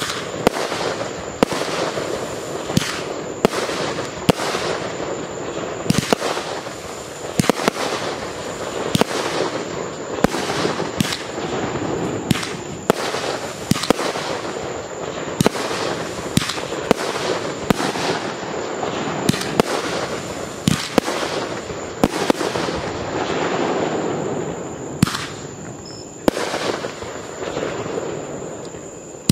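Consumer aerial fireworks firing shot after shot: an irregular string of sharp launch thumps and bangs, about one or two a second, over a continuous rumble of reports and crackle.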